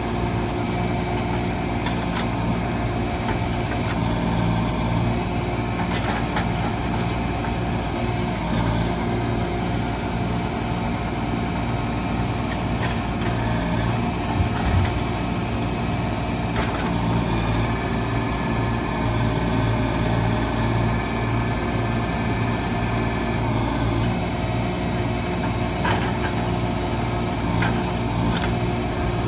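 The engine of a log-loading machine running steadily under a light load, with a few short knocks and clunks as logs are handled.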